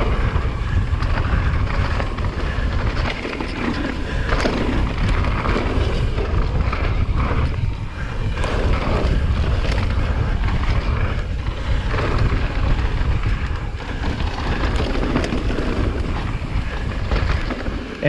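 Wind buffeting a GoPro microphone during a fast downhill mountain-bike descent, a continuous loud rumble. Over it come the rough noise of tyres on rocky trail and frequent knocks and rattles from the bike.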